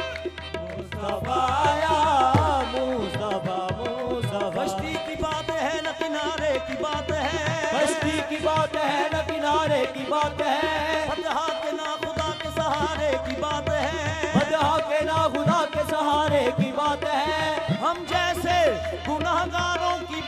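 Qawwali ensemble performing, with harmonium melody over a steady held drone, tabla beating and hand-clapping, and a voice singing ornamented, gliding runs.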